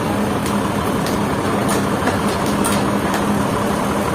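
A motor running steadily, with a low hum and a few light clicks scattered through.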